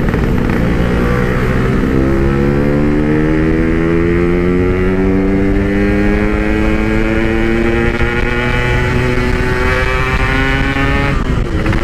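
Two-stroke Yamaha RX-King motorcycle engine running through a Packing Power PK1 exhaust while riding under acceleration. The pitch climbs steadily for most of the stretch, then dips briefly near the end.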